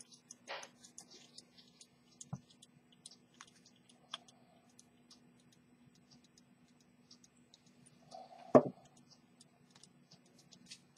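Light, scattered clicks and taps of small watch parts being handled at a watchmaker's bench, with a knock a couple of seconds in and a louder one about three-quarters of the way through, over a faint steady hum.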